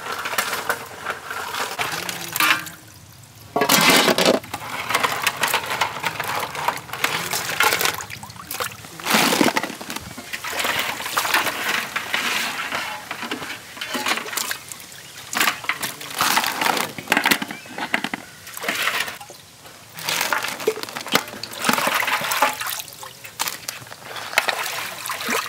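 Wet pieces of cracked mud crab shell and claws clattering and scraping against a large aluminium bowl as they are turned over by hand. The noise comes irregularly, with a louder crash about four seconds in.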